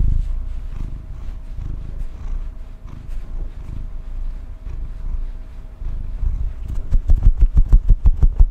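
Domestic cat purring, a low rumble that swells and fades about once a second with her breathing. Near the end there is a rapid run of louder low thumps.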